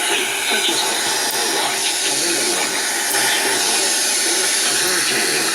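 Loud, steady hiss of radio static from a weak broadcast signal, with faint programme audio barely showing through it.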